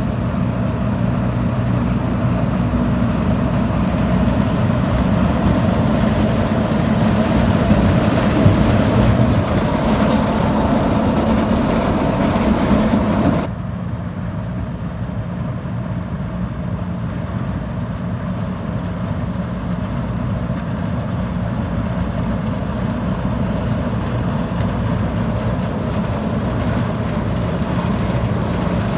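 Combine harvester running while harvesting corn: a steady, loud engine-and-machinery drone. About halfway through it abruptly becomes quieter and less hissy, then carries on steadily.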